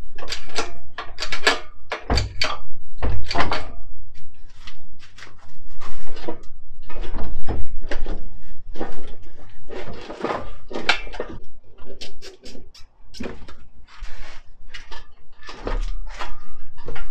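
Hydraulic engine crane being pumped by its long handle to hoist an engine out of a car: a steady run of metallic clanks and knocks, roughly two to each stroke and about a stroke a second, with a few dull low thuds.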